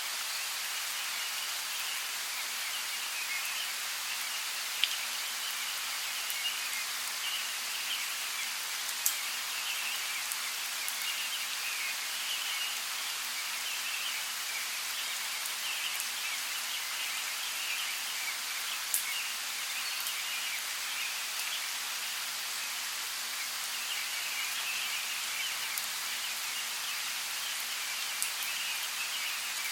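Steady rain falling, an even hiss with scattered louder drop taps, a few of them sharp.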